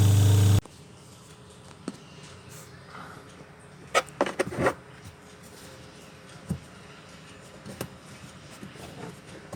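Twin-tub washing machine's wash motor giving a loud steady hum that cuts off abruptly just over half a second in. Scattered clicks and knocks of handling follow, with a cluster about four seconds in.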